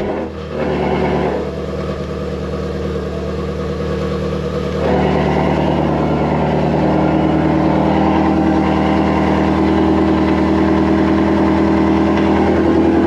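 Loud car engine idling fast and steady just after a cold start; about five seconds in it steps up in loudness and stays there.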